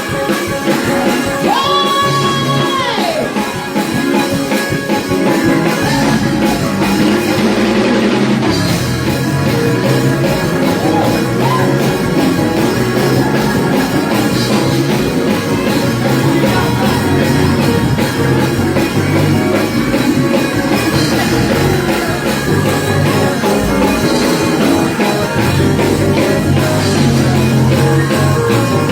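Band music with singing over a drum kit, playing without a break.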